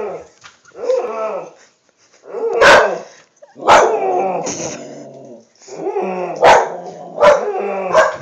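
A dog alarm-barking: drawn-out, wavering yowls, then four sharp, loud barks, each trailing into a yowl.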